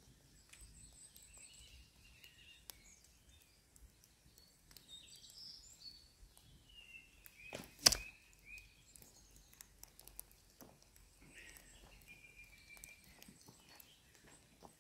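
An arrow from a longbow strikes a stuffed sack target once, a sharp, loud hit about eight seconds in. Faint birdsong around it.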